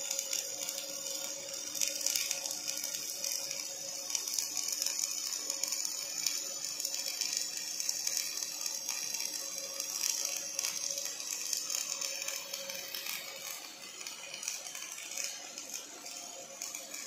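Wire-fed (MIG) welding arc from an OTC welding robot laying a bead on steel: a steady crackling hiss. A low steady hum runs underneath, one of its tones dropping away about thirteen seconds in.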